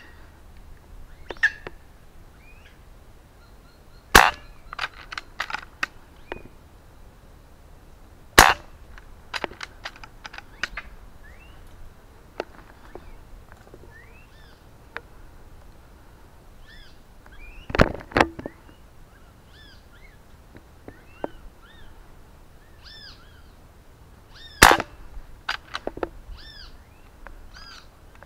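Four shots from 6.35 mm (.25 calibre) PCP air rifles: sharp cracks several seconds apart, each followed by a few quieter clicks. Between them, birds call with short arched chirps.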